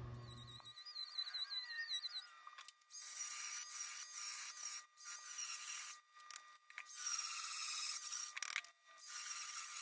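Battery-powered chainsaw cutting into the end grain of a log in several short bursts, starting about three seconds in.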